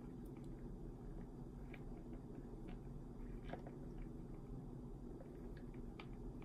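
Quiet room tone: a low steady hum with faint, scattered small clicks.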